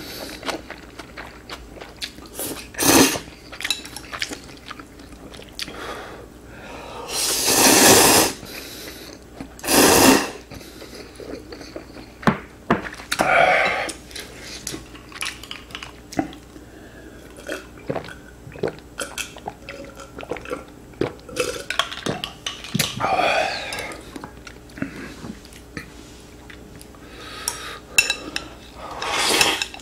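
Close-miked eating of ramen: several loud noodle slurps, constant chewing, and chopsticks clicking against a glass bowl. A couple of short sounds of the eater's voice come partway through, and broth is slurped from a small bowl near the end.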